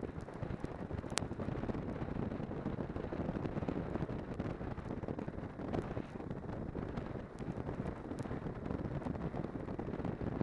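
Snowmobile being ridden: a steady rumble of engine and track under heavy wind buffeting on the microphone, with a sharp click about a second in.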